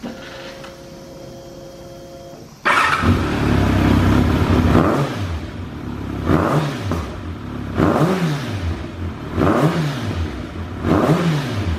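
Kawasaki ZRX1200 DAEG's inline-four engine, with a BEET titanium full exhaust, starting abruptly about three seconds in. It is then revved in five quick throttle blips, about one every second and a half, each one rising in pitch and falling back to idle. It revs up freely, a sign of an engine in good condition.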